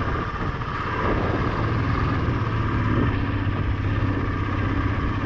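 Motorcycle engine running under way on a rough off-road track, a steady hum with road and wind noise, picking up a little about a second in.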